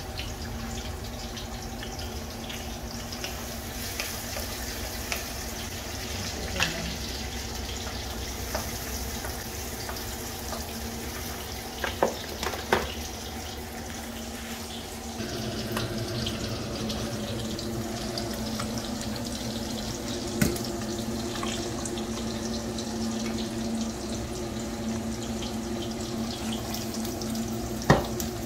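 Food frying in oil in a pan on a gas stove, a steady sizzle, getting louder about halfway through. A few sharp clinks and knocks of a spatula and jars sound over it.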